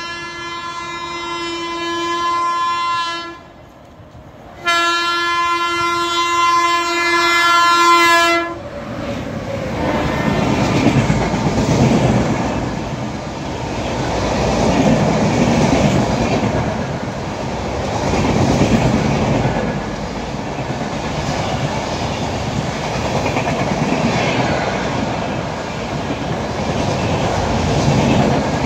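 Two long blasts of a WAP-7 electric locomotive's horn, a second and a half apart, then the continuous rumble and wheel clatter of a train's coaches running past at speed.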